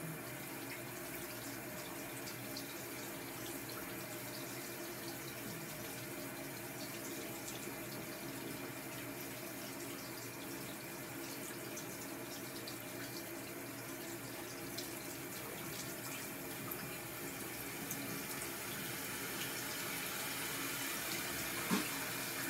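Bathroom sink faucet running steadily, water splashing into the basin, growing a little louder over the last few seconds. A short knock near the end.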